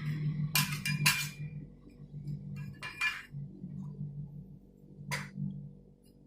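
Metal scraper strikes and clinks on a rolled ice cream machine's cold plate, about five sharp ringing clinks, three close together early and two more spread apart later, over the machine's steady low hum.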